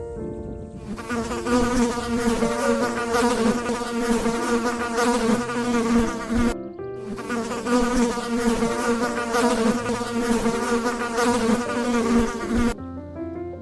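A flying insect's wingbeat buzz, steady and slightly wavering. It cuts off abruptly about halfway through, starts again straight away, and stops abruptly shortly before the end.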